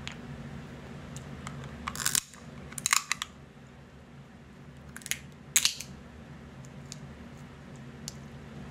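Crab leg shells being cracked and snapped apart by hand: a handful of sharp cracks, the loudest around two, three and five and a half seconds in, with small clicks of shell between.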